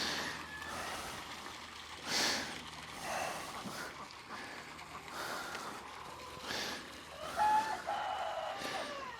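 Hard breathing and rustling hay as square bales are handled by hand, in short bursts about a second apart. A short animal call is heard about seven and a half seconds in.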